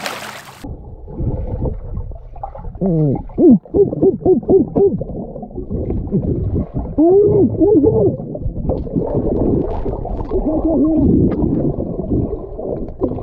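A splash as a GoPro plunges into a swimming pool, then muffled underwater sound through the camera: low bubbling and gurgling, with several runs of short warbling tones.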